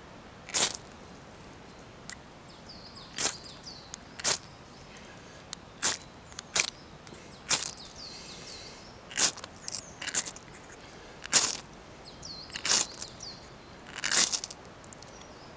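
Ferro rod being struck with a small Swiss Army knife, about a dozen short, sharp scraping rasps at uneven intervals of roughly a second. The strikes throw sparks onto scraped birch bark powder to try to catch an ember.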